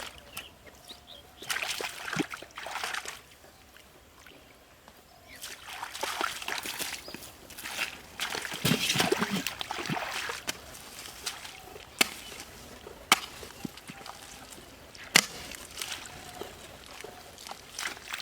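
Water sloshing and splashing in irregular bursts, with three sharp knocks in the second half.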